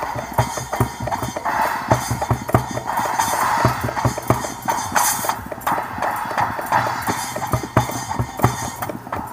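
Hand drum beating a fast, dense rhythm in a small live acoustic band.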